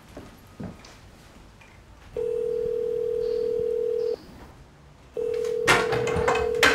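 Telephone ringing tone heard on the line: one steady tone held for about two seconds, a pause of about a second, then the tone again. A few sharp knocks or handling noises come over the second ring.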